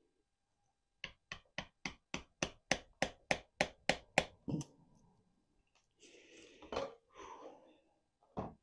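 A rapid run of about a dozen hammer strikes on hard privet wood, roughly three a second, to break up and reduce the wood, followed a little later by a short scraping noise and one more strike near the end.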